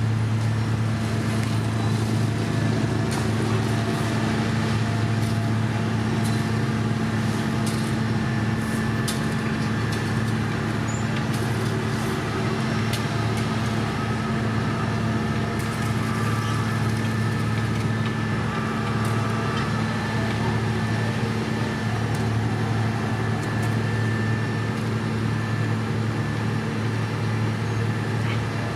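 Heavy diesel road-construction machinery running at a steady, unchanging pitch, with scattered light ticks and knocks over the hum.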